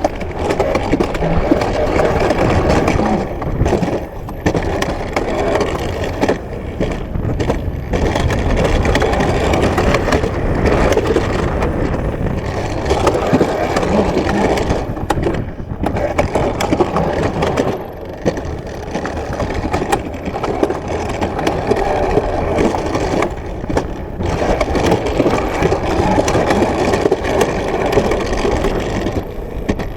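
Alpine coaster sled rolling down its rail track, its wheels giving a continuous rattling rumble with a few brief dips.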